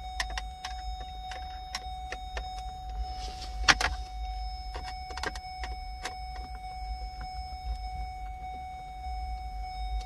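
Scattered light clicks and ticks of a Phillips screwdriver working against the hard plastic of a car's centre-console port housing, with one sharp, louder click about four seconds in. Underneath runs a steady high-pitched tone and a low rumble.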